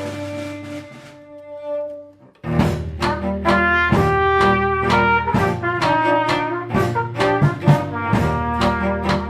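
Background music: held notes fade away over the first two seconds, then a lively passage of quick, short notes over a steady low bass begins about two and a half seconds in.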